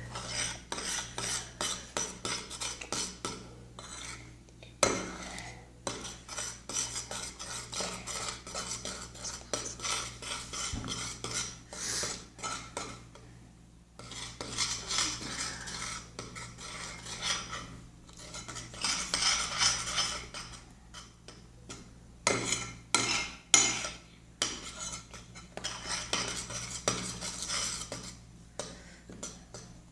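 A utensil stirring a thick, sticky slime mixture of glue and paint in a container, with repeated scraping and clinking against its sides. There is a brief pause about halfway through.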